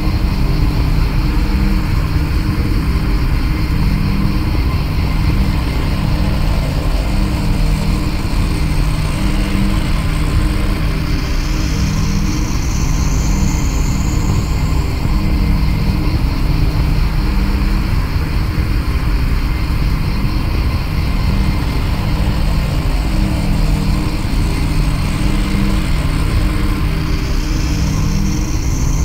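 Droning ambient electronic track: a dense, steady low rumble with a faint pulsing tone inside it. A high, airy sweep rises about twelve seconds in and again near the end.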